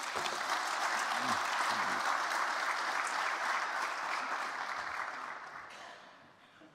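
Audience applauding; the clapping dies away over the last couple of seconds.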